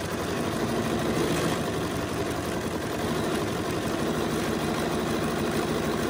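BERNINA sewing machine running steadily, its needle swinging side to side in a dense zigzag stitch over a wire laid along the edge of a fabric leaf.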